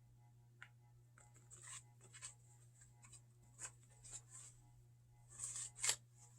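Soft paper rustling and brief scraping noises from a book being handled as its pages are turned, the loudest a little before the end.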